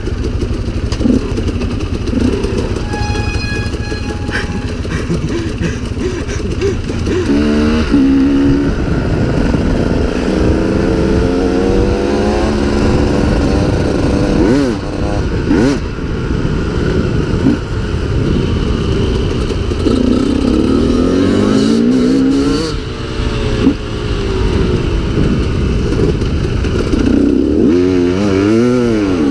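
Two-stroke KTM EXC enduro motorcycle engine being ridden off-road, its revs rising and falling over and over with the throttle and gear changes.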